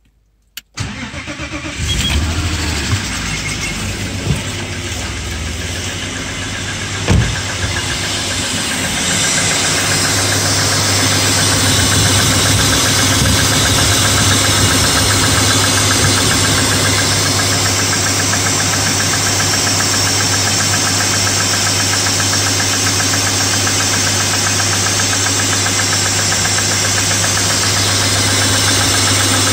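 BMW E34's M50 straight-six cranked and started cold, catching about two seconds in and then running at a steady cold idle. It carries a light lifter tapping, which the owner takes for hydraulic lifters ticking because the 10W-60 oil is too thick for a cold winter start.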